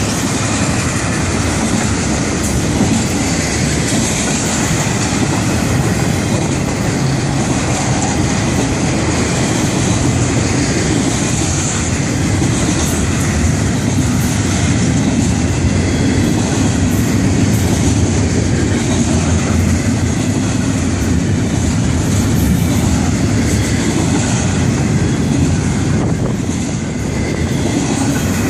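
Florida East Coast Railway intermodal freight train rolling past close by: the steel wheels of its trailer flatcars and double-stack container well cars make a loud, steady noise on the rails.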